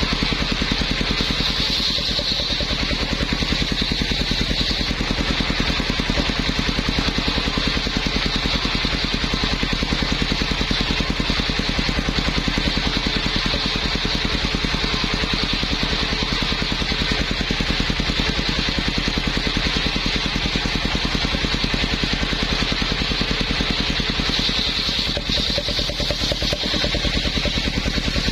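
Engine-driven circular saw rig for cutting teak running steadily: an even, rapid engine beat with a high-pitched whine above it.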